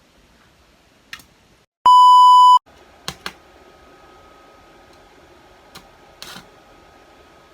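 A loud electronic beep: one steady 1 kHz tone lasting under a second, cut in with a moment of dead silence just before it. A sharp click comes before it, two more clicks follow, and a faint steady hum runs after it.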